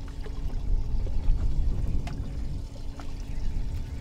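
Water pouring and trickling aboard a small boat, over a steady faint hum and a low rumble, with a few light clicks.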